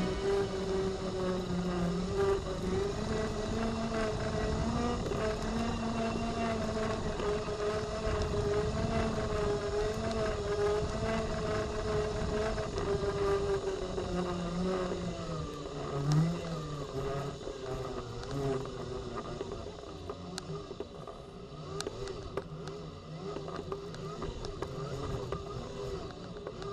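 Off-road Segway's electric drive motors and gearboxes whining as it rolls along a rough dirt track, the whine rising and falling slightly with speed over a low rumble from the ground. One louder bump about halfway through.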